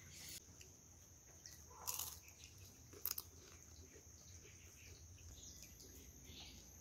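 Mostly quiet, with faint chewing of a crispy scallion pancake (cong you bing) and a couple of soft crunches about two and three seconds in.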